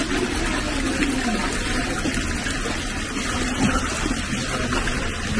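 Hot-spring water pouring steadily from a pipe into a tiled foot-bath basin, a constant rush of running and splashing water.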